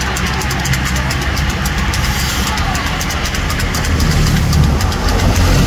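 A pack of road-racing bicycles whirring past with rapid, irregular clicking, over a steady low engine rumble. The engine rumble grows louder about four seconds in, as the race's team cars and motorcycles go by.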